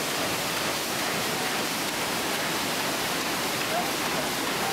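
Steady rush of water churned up by the paddle wheel of the paddle steamer Waverley as she gets under way.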